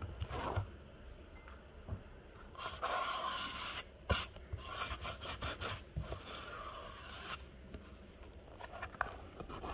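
Glue brush scrubbing adhesive onto a sanded strip of inflatable-boat fabric, in three scrubbing passes of about a second each, with a sharp knock about four seconds in.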